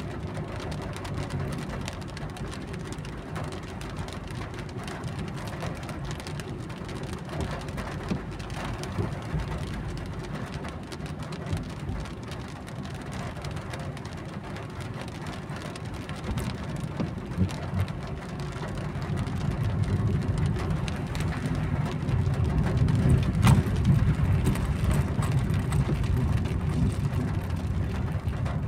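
Car cabin noise while driving in rain: a steady low rumble of engine and wet tyres with raindrops ticking on the roof and windshield, louder in the last third.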